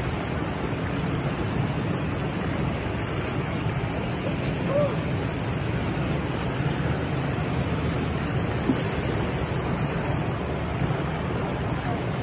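Steady rush of churning outflow water below a concrete dam wall. There are a couple of brief faint calls about five and nine seconds in.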